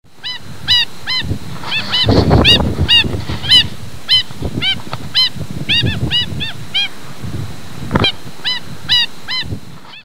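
Black stilt (kakī) giving a rapid series of short, high yapping calls, about two a second, with a brief pause around seven seconds in, over a low rumbling background.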